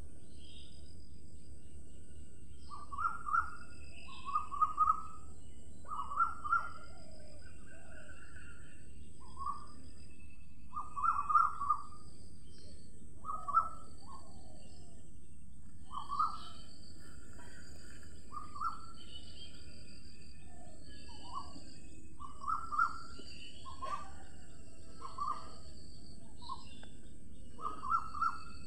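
Birds calling: short clear calls repeated in twos and threes, with fainter higher chirps between them, over a steady high hiss.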